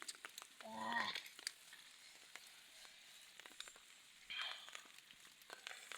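Faint crackling with scattered small clicks, and a short voiced exclamation about a second in.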